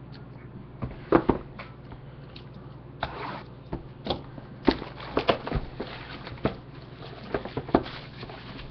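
Trading-card boxes and packaging handled on a desk: irregular taps, knocks and light rustles, the loudest about a second in, over a low steady hum.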